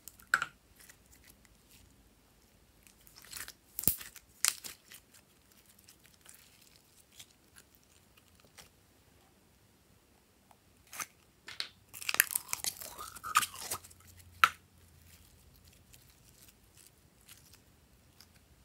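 Sticky slime being squeezed out of a small plastic tub and pressed with the fingers: wet crackling and sharp clicks in a few short spells, with quiet between them.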